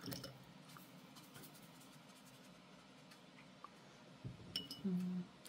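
Faint scratching and light dabbing on paper as wet watercolour is worked; near the end, a few short low steady tones.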